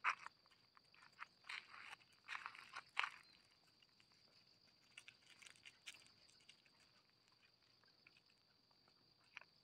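Footsteps crunching on gravel: a few short clusters of crunches in the first three seconds, then only faint scattered ticks. A faint steady high tone carries on throughout.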